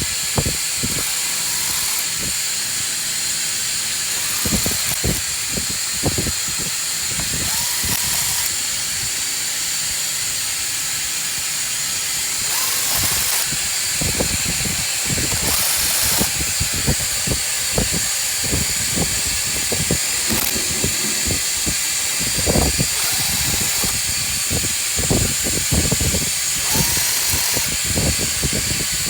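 Tools at work on the bolts that fasten an engine oil cooler: scattered metallic clicks and knocks, thickest in the second half, with a few brief whirs from a power driver, over a steady hiss.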